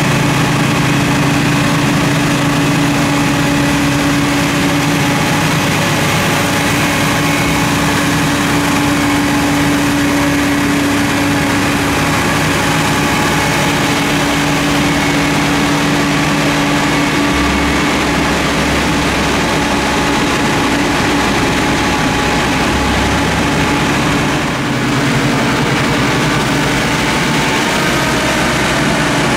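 Diesel engines of a subway snow-thrower work train, diesel locomotives coupled to rail snow-thrower units, running at close range as the train creeps past: a loud, steady engine drone with a low hum.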